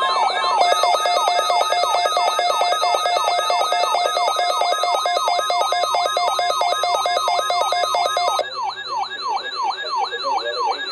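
Several electronic alert alarms sounding at once: a siren tone sweeping down in pitch about three times a second, layered with steady repeating beeps. Most of the layers cut off suddenly about eight and a half seconds in, leaving a single sweeping siren that stops near the end.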